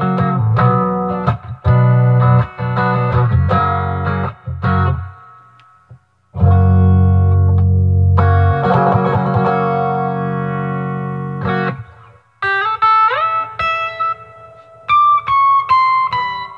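Gibson Melody Maker electric guitar with one pickup, played through an Acoustic Control Corp 260 solid-state head into 2x12 cabinets, set for the manual's 'dual Showman' tone. Choppy strummed chords, then one chord left to ring for about five seconds, then single notes bent upward and a falling run of high notes near the end.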